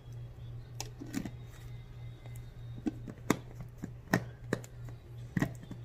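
Irregular sharp clicks and taps of a metal serving spoon knocking and scraping against a glass bowl and jar while mayonnaise is spooned out, loudest about three and four seconds in, over a steady low hum.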